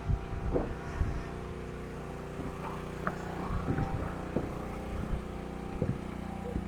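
A motor running steadily with an even hum, with a few short knocks over it.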